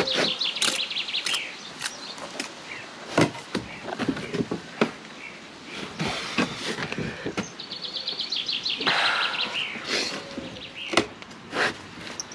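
Steel brick trowel tapping and scraping against concrete blocks and mortar as a block is bedded, a scatter of sharp knocks. A bird trills twice in the background, at the start and about two-thirds of the way through.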